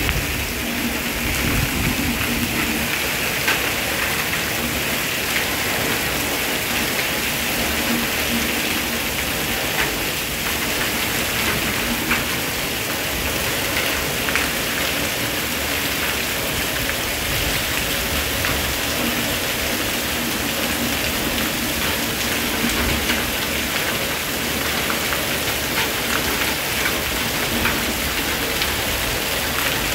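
Heavy monsoon rain falling steadily on roofs and paving, a continuous hiss with scattered sharp drop taps.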